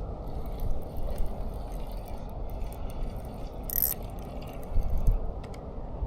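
Scattered light clicks and clinks over a steady low rumble. There is a short hiss a little before four seconds and a few low thumps around five seconds.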